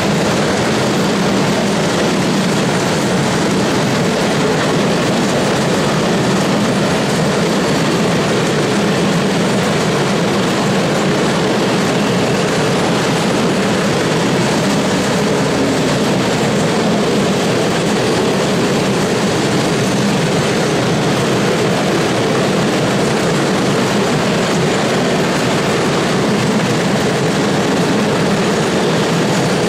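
Heavily loaded open coal wagons of a long freight train rolling past close by: a steady, loud running noise of wheels on the track.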